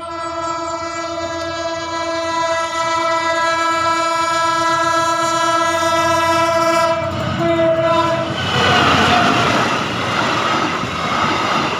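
Train horn sounding one long steady blast of about seven seconds, then a short second blast. From about seven seconds in, the loud noise of the passing train's wheels on the rails takes over.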